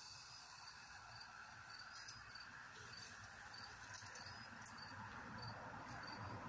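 Insects chirping in a steady rhythm, about two short high chirps a second, over a faint outdoor hush. A soft rustling grows near the end, with a couple of light clicks.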